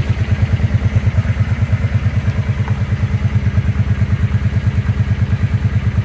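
Suzuki Boulevard C50's V-twin engine idling steadily, with an even, regular pulse from the exhaust.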